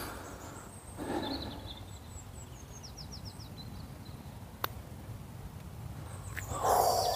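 Putter striking a golf ball once: a single sharp click about four and a half seconds in. Birds sing in the background before it, including a quick run of falling chirps, and a brief louder sound comes near the end.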